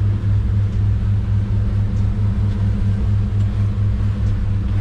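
Boat engine running steadily: a low, even hum with a slight regular throb.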